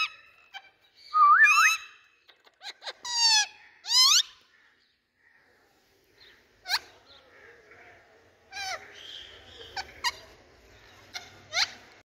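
Indian ringneck parakeets calling: a run of loud, warbling whistled calls that glide up and down in pitch in the first four seconds, then after a short lull single sharp squawks every second or so, with soft chatter under them.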